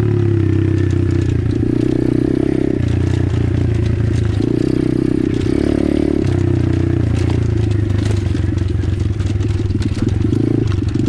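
Apollo RFZ 125cc pit bike's small single-cylinder four-stroke engine running under way on a trail, its revs rising and falling in steps every second or two with the throttle and gear changes. Stones and the chassis clatter and scrape over rocky ground.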